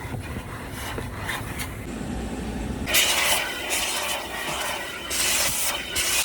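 Car wash vacuum hose sucking while cleaning a car interior. A low rumble for the first half, then, about three seconds in, a sudden much louder rushing hiss with a high whine as the nozzle draws air.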